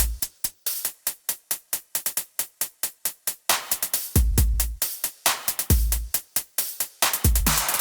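Electronic dance music with a fast, steady drum-machine beat; deep bass hits drop out in the middle and come back about four seconds in.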